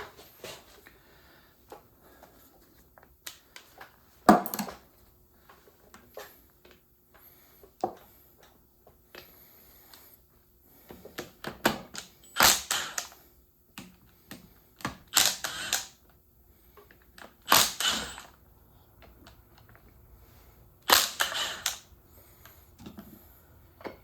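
Metal clicking and clanking from hand work on a railway air brake valve on a workbench: scattered ticks and several louder bursts of rapid clicks, each about a second long.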